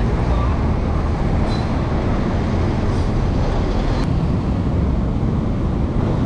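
Steady rushing noise of wind on the microphone of a camera riding along on a moving bicycle, mixed with road traffic. A single faint click about four seconds in.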